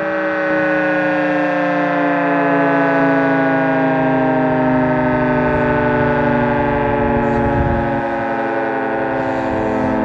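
Federal Signal 2T22 rotating two-tone civil-defence siren sounding its chord, the pitch sliding slowly and steadily downward as the rotors wind down at the end of an alert cycle.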